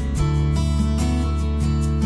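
Background music led by a strummed acoustic guitar, with held notes over a steady bass line.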